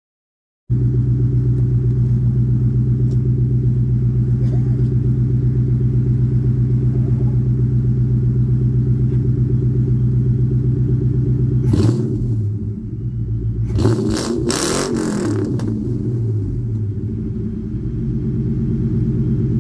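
Ford Mustang GT's 4.6-litre two-valve V8 idling cold through a Borla S-Type cat-back exhaust, a steady deep idle from the dual tailpipes that comes in after a short silence under a second in. About twelve seconds in, and again for a second or two around fourteen seconds, short bursts of hissing noise lie over it and the idle wavers.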